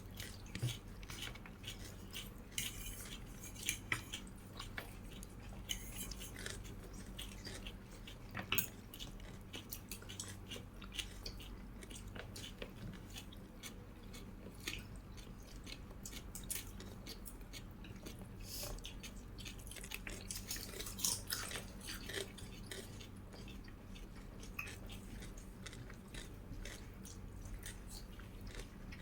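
Close-miked mouth sounds of a person chewing and biting food, with many short crisp clicks and crunches, loudest around four, nine and twenty-one seconds in. A faint steady low hum runs underneath.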